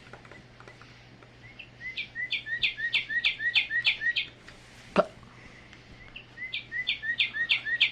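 Recorded northern cardinal song played from a Wild Republic Audubon plush bird's sound box: two runs of repeated down-slurred whistled notes, about three a second, with a pause between them. A single click comes about five seconds in.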